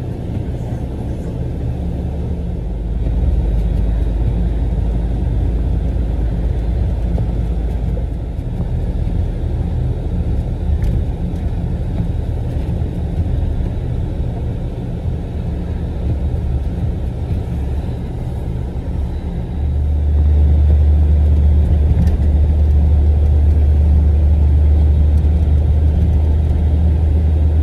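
Truck engine and road noise heard inside the cab while driving, a steady low drone that gets noticeably louder about twenty seconds in.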